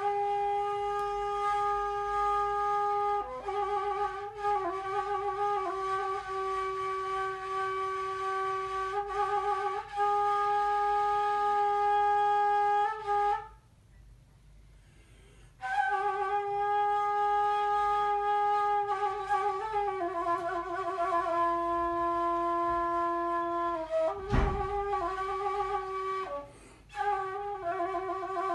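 Kaval, a long end-blown wooden flute, playing a slow melody of long held notes with wavering trills, breaking off for about two seconds halfway through. A brief low thump comes near the end.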